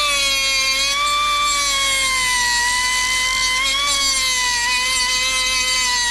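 Small handheld rotary tool whining at high speed as its bit drills into a metal fitting on a fuel pump hanger, the pitch dipping a little and recovering as the bit bites into the metal.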